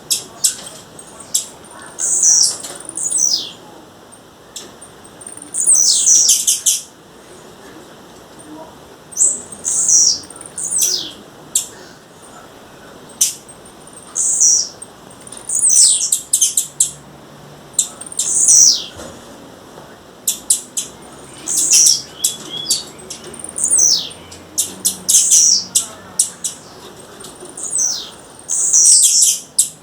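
Blue-black grassquit (tiziu) calling: clusters of short, high, downward-sweeping notes every two to three seconds, with sharp clicks between them.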